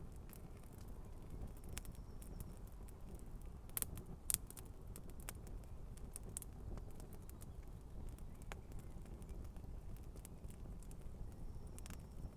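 Campfire crackling, with scattered sharp pops, two louder ones about four seconds in, over a low steady rumble.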